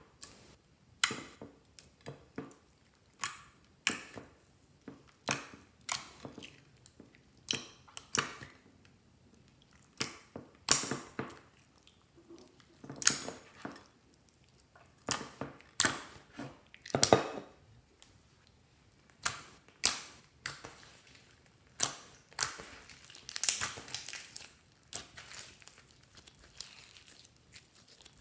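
Clear slime being kneaded and pressed by hand, giving sharp sticky pops and crackles about one or two a second, with a few longer crackling stretches.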